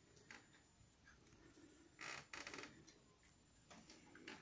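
A cat crunching dry kibble at its bowl: faint, scattered crunches, loudest in a short cluster about two seconds in.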